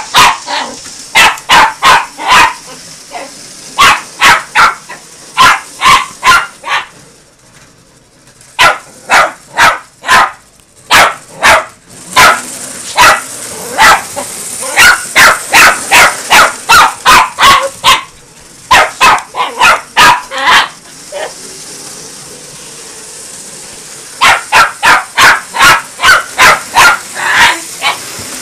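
Yorkshire terrier barking excitedly at a moving toy train: rapid runs of sharp, high yaps, several a second, broken by a couple of short pauses.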